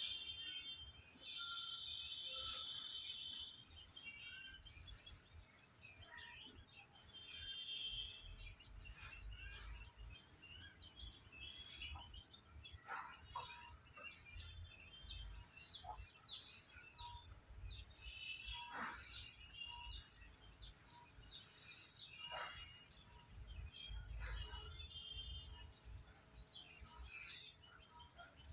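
Birds chirping faintly in the trees: a steady run of quick, downward-sweeping chirps, with a few longer held whistling notes, over a low uneven rumble.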